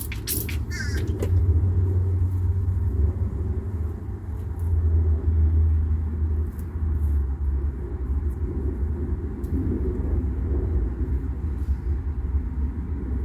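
Steady low rumble that swells and eases, with a few faint ticks over it.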